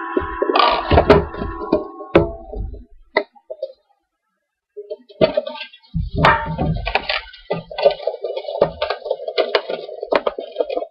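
Clicks, knocks and clatter of a metal Pokémon card tin and its contents being handled on a table, with a second or so of dead silence in the middle. A steady tone runs underneath for the last few seconds.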